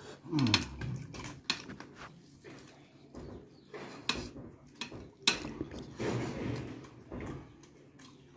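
Close-up eating sounds of curried chicken feet eaten by hand: chewing, lip smacks and sharp clicks of bone, fingers and plate. A short falling tone about half a second in.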